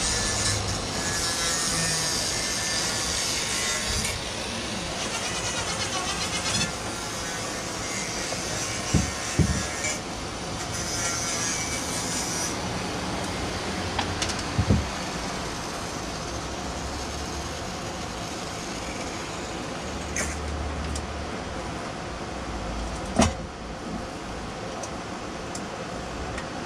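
Rasping, scraping work noise in stretches, with a few sharp knocks, over a steady background hum.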